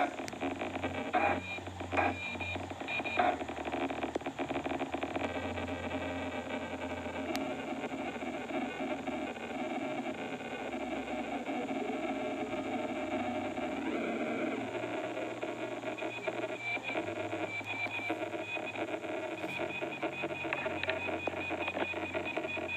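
Circuit-bent electronic toy glitching through its small speaker: a continuous stream of stuttering, buzzing electronic tones and noise. It is choppy with sharp stutters over the first few seconds, then settles into a denser, steadier glitchy drone.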